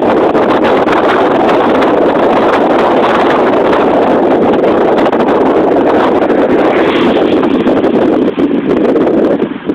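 Heavy wind buffeting the microphone from a moving car: a loud, steady rush with a brief dip near the end.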